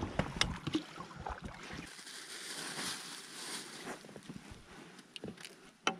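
Scattered light clicks and knocks of gear being handled in an inflatable boat, over a soft hiss that swells in the middle, with one sharper click near the end.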